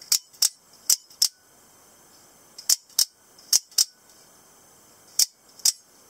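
Out-the-front automatic knife's spring-driven blade snapping out and back: ten sharp clicks in five quick pairs, the two clicks of each pair about a third of a second apart.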